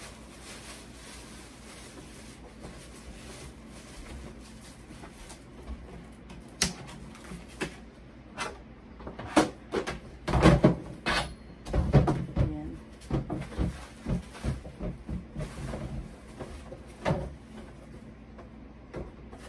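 A run of knocks and clatters as a kitchen trash bin and a lower cabinet door are handled, busiest and loudest around the middle.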